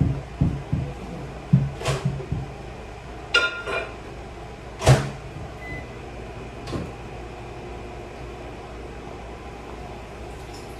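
A microwave oven being used: a few low thumps, a short rattling clatter, a sharp click like its door shutting, and a brief faint beep.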